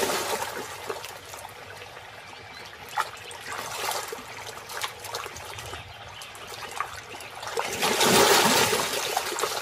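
Nile crocodiles fighting at the water's edge: water sloshing and splashing with a few sharp knocks, and a louder splash about eight seconds in as one crocodile surges through the water.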